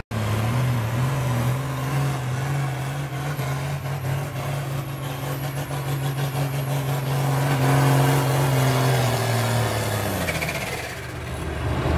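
John Deere super field pulling tractor's diesel engine running flat out under full load as it drags the weight-transfer sled, holding a steady high pitch that climbs a little, then winding down at about ten seconds as the pull ends.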